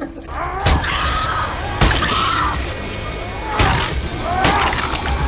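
Horror-film soundtrack: four heavy hits, unevenly spaced about a second apart, over a steady music bed, with rising-and-falling wailing tones between the hits.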